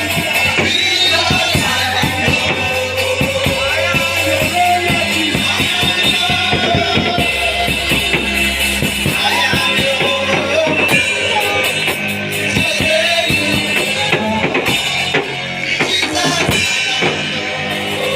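Church worship music: a band with a drum kit and guitar playing, with a voice singing over it.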